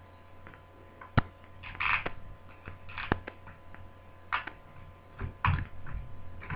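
Sharp clicks, short scrapes and a few dull knocks from laptop parts being handled as the LCD screen panel is worked free of its lid.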